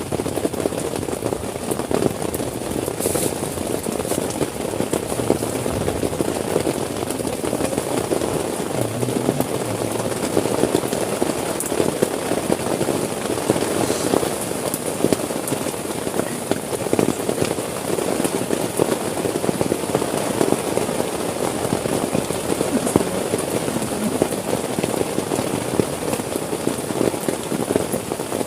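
Heavy rain falling steadily on a tent, a dense, unbroken crackle of drops hitting the fabric.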